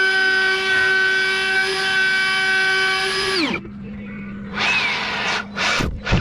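An electric power tool's motor running at a steady high speed, then winding down and stopping about three and a half seconds in. A few short, noisy bursts follow near the end.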